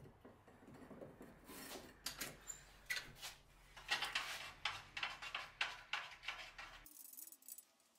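Steel knife blade clinking and knocking against a tall steel quench tank as it goes in for heat treat: a run of sharp metallic clicks and clanks, thickest in the middle, that stops abruptly near the end.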